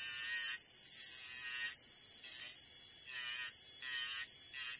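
Electric nail drill spinning a gel-removal bit against a fingernail with a steady high whine. A higher grinding tone swells and fades about six times as the bit grinds gel down toward the base coat.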